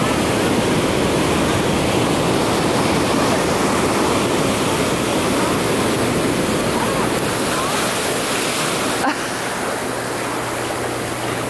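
Ocean surf breaking and washing over a sandy beach, a steady rush of waves that dips slightly about nine seconds in.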